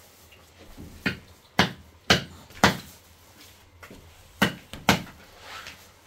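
Sharp knocks or thuds, four about half a second apart, then a pause and two more.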